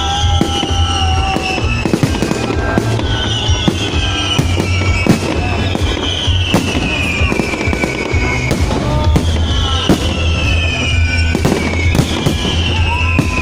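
Fireworks display: a dense run of bangs and crackles, with high whistles falling in pitch about every three seconds over a steady deep rumble.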